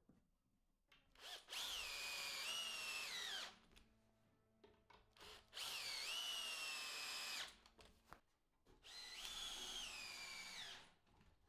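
Cordless drill driving screws into oak boards, three runs of about two seconds each. The motor whine falls in pitch toward the end of each run.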